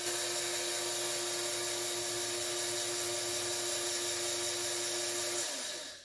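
A small electric motor hums steadily with a high whine, then winds down in pitch and stops about five and a half seconds in.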